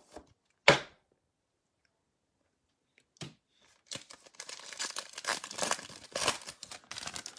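A sharp tap, then a foil trading-card pack wrapper being torn open and crinkled, a dense crackling that lasts the last few seconds.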